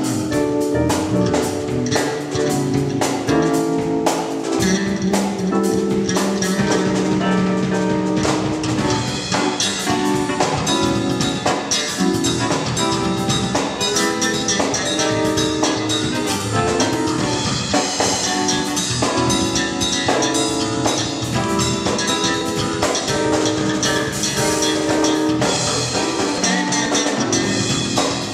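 Gospel-style groove played by a band: a drum kit with busy snare and cymbal strokes over bass and keyboard chords.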